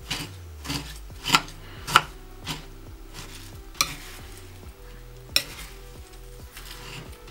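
A steel spoon stirring a chatpate mix of crushed instant noodles, potato and chopped vegetables in a ceramic bowl, with irregular clinks and scrapes of the spoon against the bowl, most of them in the first three seconds.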